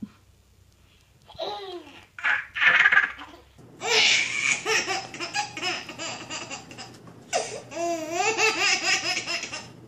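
Baby laughing hard in long fits from about four seconds in, the laughs coming in quick pulses. Before that, a few short voice sounds.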